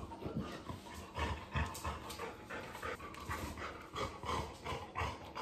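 Australian shepherd panting in quick, uneven breaths while playing.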